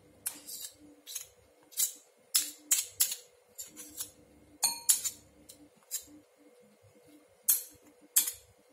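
Metal spoons clinking and scraping against a ceramic bowl while scooping thick red pepper paste: a dozen or so irregular light clinks, one with a short ring.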